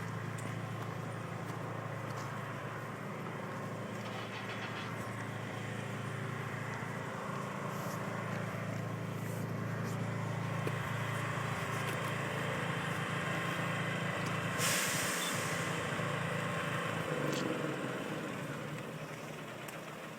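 Heavy-haul tractor-trailer's diesel engine running with a steady low hum, then fading out near the end. A short burst of air hiss about fifteen seconds in is the loudest moment.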